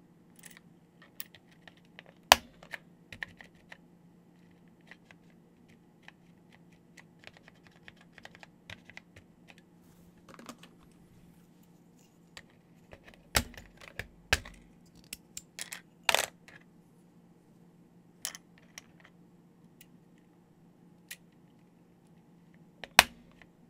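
Keys on an Epson HC-20 keyboard with heavy SMK linear mechanical switches, which take about 100 g to bottom out, being pressed one at a time in an irregular pattern. Mostly light clicks, with a handful of much louder clacks as keys bottom out hard, one about two seconds in, a cluster in the middle, and one near the end.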